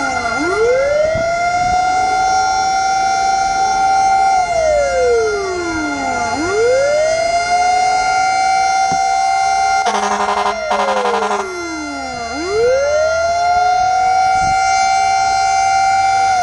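Fire truck siren wailing slowly: it glides up, holds a high note for about two seconds, then falls, about three times, under steady high tones. Two short horn blasts come about two-thirds of the way through.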